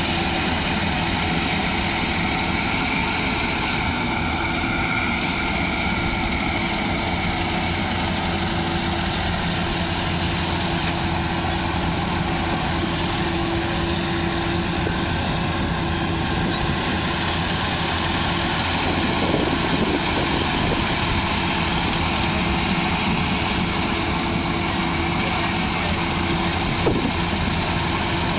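Engine of a rice-harvesting machine running steadily at a constant speed, with a single short click near the end.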